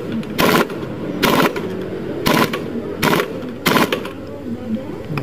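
Impact wrench hammering the variator nut of a scooter's CVT tight, in five short rattling bursts about a second apart.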